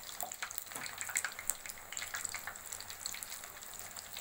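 Gram-flour-battered green chillies (mirchi bajji) deep-frying in hot oil in a kadai: a dense, steady crackle and sizzle of fine pops. This is the second fry on high flame, which crisps the outer batter.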